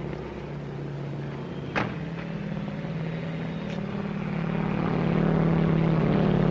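Propeller biplane's engine droning overhead, growing louder over the last couple of seconds. A car door shuts with a single sharp knock about two seconds in.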